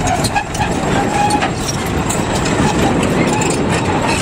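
Crawler bulldozer's diesel engine running steadily, with a rapid clanking clatter from its tracks.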